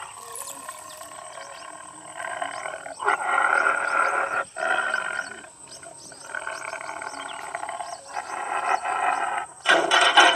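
Horn loudspeaker on a field pole broadcasting recorded wild-animal roars as a deterrent to keep wild boar out of the crops. The calls come in spells with short breaks and get louder near the end.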